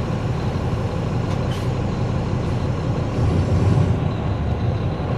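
Diesel engine of a 2009 NABI 416.15 transit bus (Caterpillar C13 ACERT) running, heard from on board as a steady low rumble. It grows louder for about a second around three seconds in.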